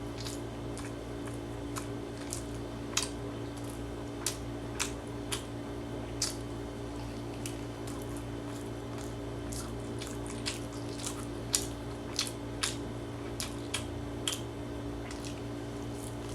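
A person chewing a seafood rice ball with the mouth close to the microphone: irregular wet clicks and smacks, a few of them sharper, over a steady low hum.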